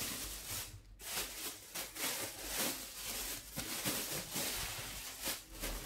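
Thin plastic bag rustling and crinkling in a run of irregular swishes as it is lifted and handled over a slab of dough.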